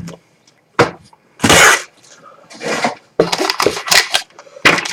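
Items being handled and set down while unpacking a box: a few sharp knocks and clatters, a short rustle about a second and a half in, and a quick run of clicks near the end.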